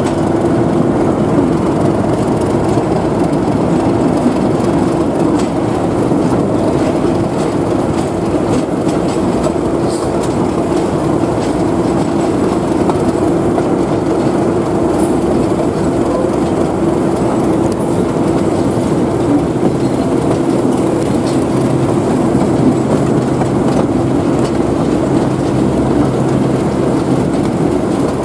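Class 37 diesel locomotive's English Electric V12 engine working steadily under load as the train runs along, heard from an open window on the moving train, with the wheels clicking over the rail joints. A deeper engine note joins about two-thirds of the way through.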